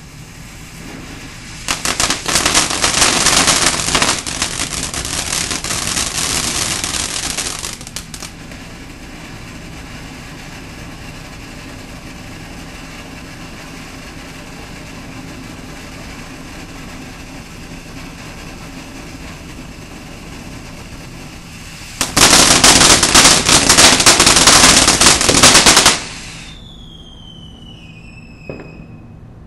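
Ground fountain firework going off, with two loud stretches of rapid crackling popping, about two seconds in for some six seconds and again for about four seconds near the end, and a steadier hiss of spraying sparks between. Just after the second burst, a few short falling whistling tones.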